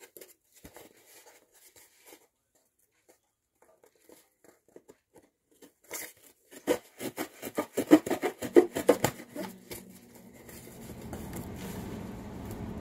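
Butter knife sawing back and forth through a package's tape and cardboard: a few faint handling clicks, then a quick run of scraping strokes from about six seconds in. A low steady hum comes in near the end.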